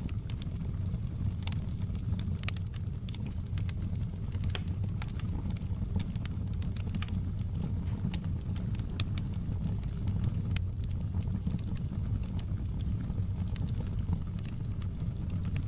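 Wood fire burning in a fireplace: a steady low rumble of the flames with frequent sharp crackles and pops scattered irregularly throughout.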